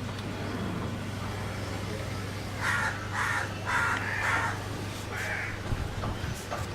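A bird calling harshly, about five short calls in a row, over a steady low hum.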